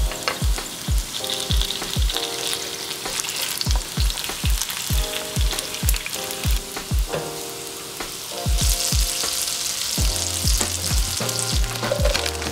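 Potato gnocchi sizzling as they fry in oil in a nonstick pan, a steady sizzle that grows louder about nine seconds in. Background music with a steady low beat runs underneath.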